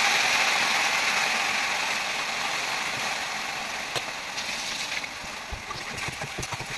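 Food sizzling in hot oil in an iron kadhai, a steady frying hiss that slowly dies down. A few taps and knocks come near the end.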